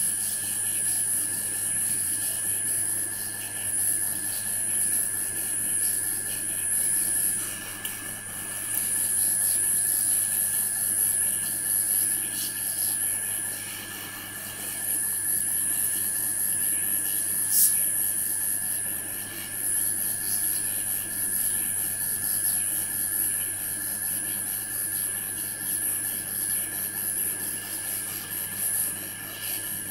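Hot-air rework station blowing hot air onto a surface-mount IC on a circuit board to melt its solder for removal: a steady airy hiss with a thin high whine, dipping briefly a couple of times. One sharp click about 17 seconds in.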